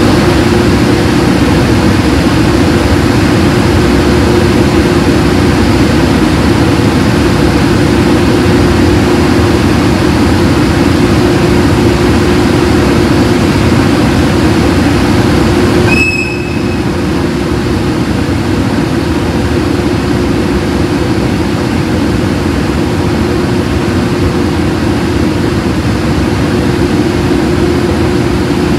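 EH500 electric locomotive's cooling blowers running loud and steady while the locomotive stands, with a strong humming tone under the rush of air. About halfway through the noise drops suddenly with a short high chirp, then carries on a little quieter.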